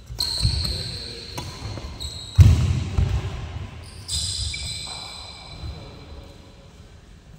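Badminton doubles rally on a wooden indoor court: shoes squeaking on the floor, feet thudding, and sharp knocks of rackets hitting the shuttlecock, the loudest knock about two and a half seconds in.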